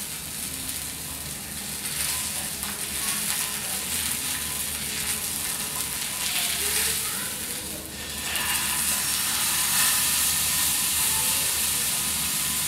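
Pork steak sizzling in hot oil in a steel pan. About eight seconds in, the sizzle briefly drops and then comes back louder as the steak is turned with tongs and its raw side goes down into the oil.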